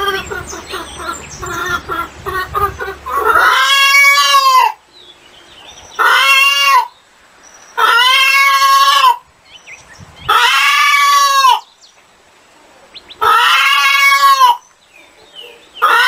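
Chickens clucking in quick short notes, then a series of loud, drawn-out calls, each about a second long and arching up and down in pitch, repeated about every two seconds.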